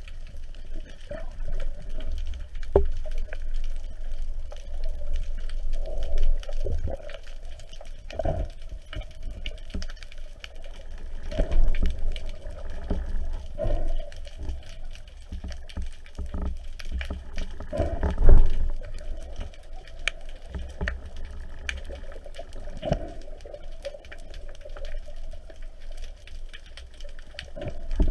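Underwater sound heard through a camera's waterproof housing as a spearfishing diver swims: irregular muffled thumps and surges of water moving past the camera, one stronger surge about two-thirds of the way in, over a scatter of faint sharp clicks.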